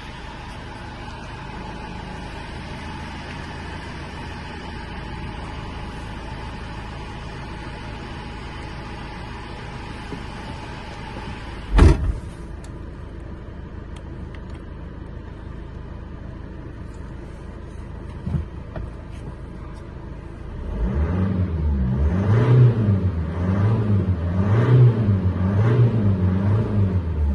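Iveco Daily 35S14 van's four-cylinder diesel engine running at a steady idle just after starting, with one sharp knock about halfway through. In the last six seconds the engine note turns louder and pulses about once a second.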